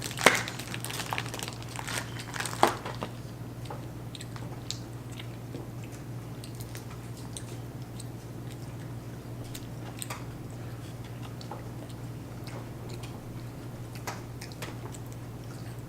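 Children chewing and biting McDonald's Happy Meal food close to the microphone, with small crunches and mouth clicks, a few louder ones in the first three seconds. A steady low hum runs underneath.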